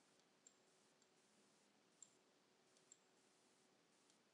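Faint computer mouse clicks, about five spread over four seconds, over near-silent room tone.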